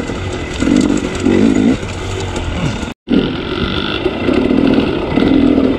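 Dirt bike engine running under the rider, revving up and easing off over rocky singletrack; the sound drops out for an instant about three seconds in.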